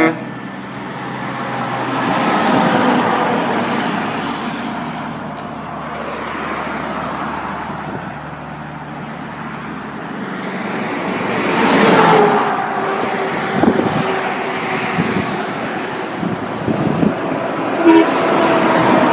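Road traffic passing, loudest as a vehicle goes by about twelve seconds in. Near the end comes a short, low truck-horn toot.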